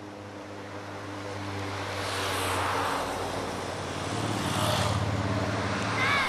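A motor vehicle's engine running with a steady low hum that grows louder and swells twice. A brief higher-pitched tone comes near the end.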